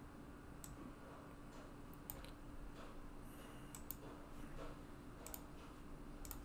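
Faint computer mouse clicks, a few scattered single clicks and close pairs, over a faint steady low hum.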